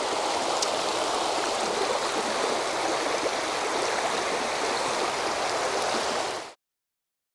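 Shallow creek running over a rocky riffle: a steady rush of flowing water that stops abruptly about six and a half seconds in.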